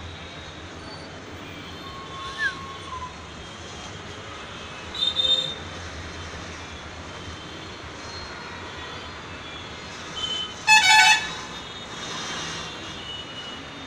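Steady outdoor street traffic noise, with a brief vehicle horn toot about eleven seconds in and a few short faint chirps earlier.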